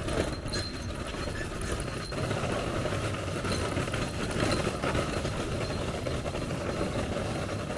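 Steady rumble of vehicle engines and road traffic.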